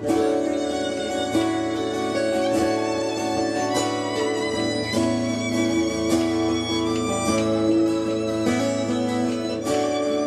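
Live band music: a fiddle plays a bowed melody line over strummed guitars.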